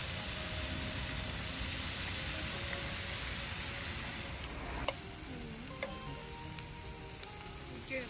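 Strips of pork sizzling and frying on parchment paper in a grill pan over a portable gas stove. The sizzle is dense at first and thins out about five seconds in, with a few sharp clicks after that.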